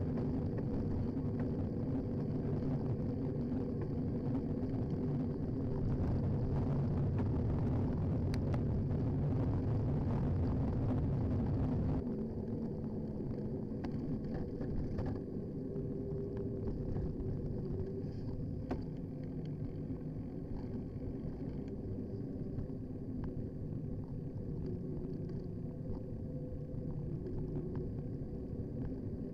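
Wind and road rumble picked up by a handlebar-mounted action camera on a moving bicycle, with a few faint clicks. It drops to a quieter level about twelve seconds in.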